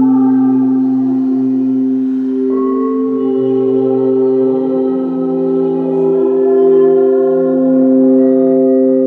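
Several crystal singing bowls ringing together in long, steady, overlapping tones, with a new higher tone joining about two and a half seconds in.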